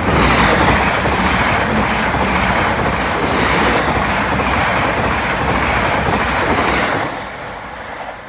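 Greater Anglia Class 745 electric multiple unit passing close by: a loud, steady rush of wheels on rail that comes in suddenly and falls away about seven seconds in as the train goes by.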